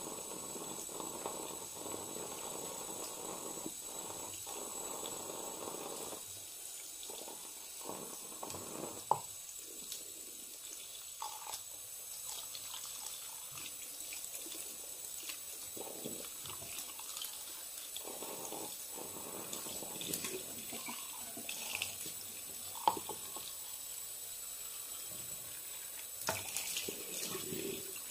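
Homemade slime squeezed and kneaded in the hands: irregular wet squelching, with a couple of sharp clicks.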